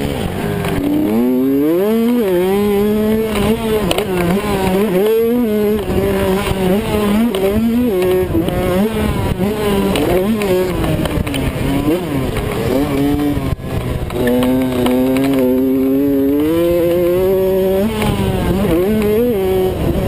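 Kawasaki KX85 two-stroke single-cylinder engine, heard from a camera on the bike, revving up hard and dropping off again and again through the gears. There is a single sharp knock a little past halfway.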